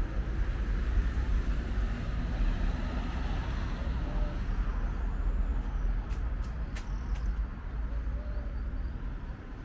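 Road traffic on a city street: cars passing with a steady rumble, easing a little toward the end, with a few sharp clicks a little past halfway.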